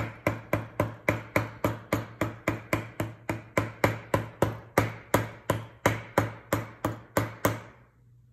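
Chasing hammer tapping lightly and quickly on a wire rivet end, about four strikes a second, peening it down into a rivet head on enamelled pieces; the tapping stops near the end.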